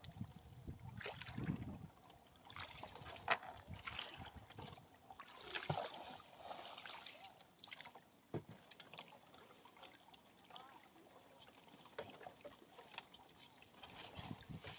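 Faint water lapping against a small wooden canoe's hull, with a few soft knocks from the boat.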